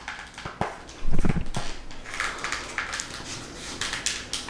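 Handling noise of a reusable respirator mask and its shield cover being flexed and fitted in the hands: scattered small clicks and rustles, with a louder low thump about a second in.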